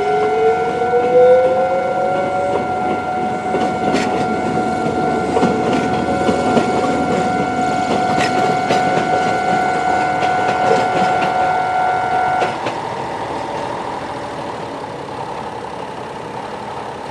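Japanese level crossing alarm ringing at a fast tempo, cutting off about two-thirds of the way through. Under it a Konan Railway 7000 series train passes: a rising motor whine for the first couple of seconds as it gathers speed, then clicks of its wheels. Road vehicle engines are left running after the alarm stops.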